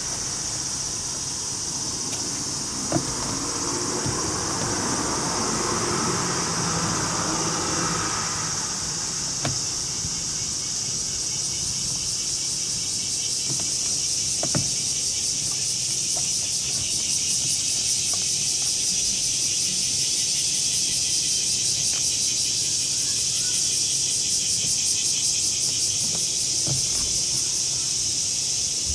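Insects shrilling steadily in a high, continuous band, which turns into a fast pulsing trill about twelve seconds in. Soft rustling fades out early on, and there are a few isolated clicks.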